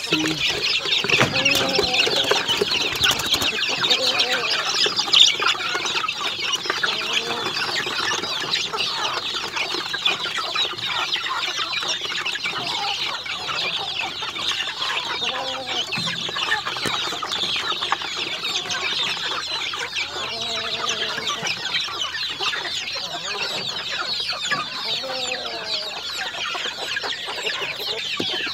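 A brood of young chicks peeping together in a continuous high-pitched chorus, with a few lower clucking calls now and then.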